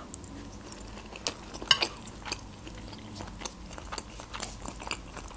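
Close-miked chewing of a mouthful of crab-stick salad: soft, irregular wet mouth clicks and small crunches, with a sharper snap a little before two seconds in.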